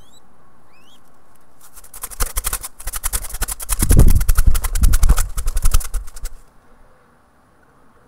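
Mourning dove fledgling flapping its wings hard right at the microphone: a fast flutter of wing beats that starts about two seconds in, is loudest in the middle, and stops suddenly past six seconds. Two short rising chirps come in the first second.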